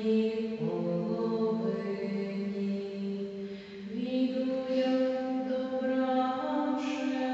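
Slow liturgical singing in long, held notes, with the pitch stepping up about four seconds in.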